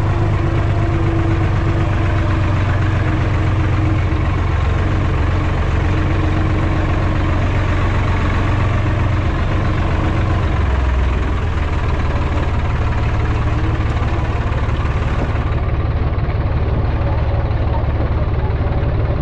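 Hattat 240s compact tractor engine running steadily as the tractor drives along a dirt track, a low, even engine note.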